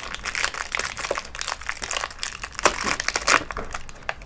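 Thin plastic packaging of a pack of battery cells crinkling and crackling in the hands as it is opened, in dense irregular crackles that thin out near the end.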